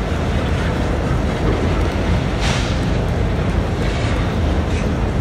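Diesel freight locomotives running, a steady low rumble, under a steady hiss of rain.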